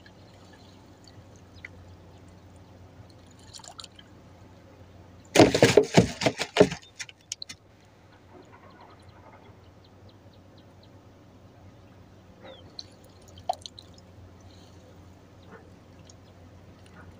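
Water splashing hard for about a second and a half, about five seconds in, as a small fish caught in a drift net thrashes at the surface while the net is hauled in. Faint drips and a low steady hum otherwise.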